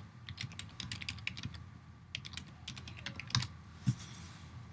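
Typing on a computer keyboard: a quick, uneven run of key clicks, with two louder clicks about three and a half seconds in, after which the typing stops.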